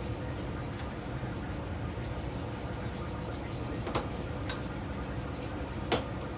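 Steady rushing noise of a commercial kitchen's gas burners and extraction hood, with a thin high whine running under it. Two sharp clinks stand out, one about four seconds in and a louder one about six seconds in.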